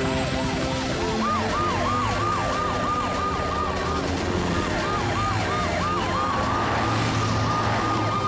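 Cartoon emergency-vehicle sirens from the rescue team racing to the scene: a slow rising-and-falling wail layered with a fast yelping siren of about four to five sweeps a second, over a low steady hum.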